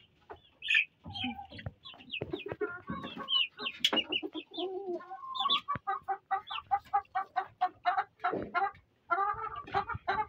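Chickens in a coop clucking, with a fast, even run of short clucks through the second half.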